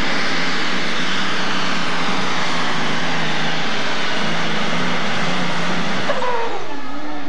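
Super stock pulling tractor's engine running flat out under full load on a pull, with twin exhaust stacks. About six seconds in, the engine noise drops away as the pass ends.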